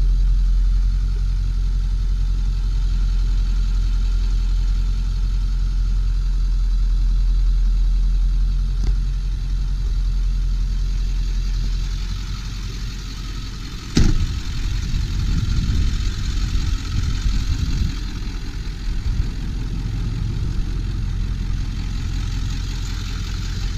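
A 7.3-litre Power Stroke turbo diesel V8 idling steadily, heard as a low hum. There is one sharp knock about 14 seconds in, after which the engine sound is less even.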